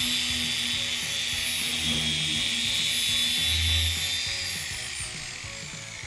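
Electric paint polisher with a foam pad running steadily on car paint, a high whine over a rushing hiss, as it works finishing compound into the clear coat. About four and a half seconds in, the whine falls in pitch and fades as the polisher spins down.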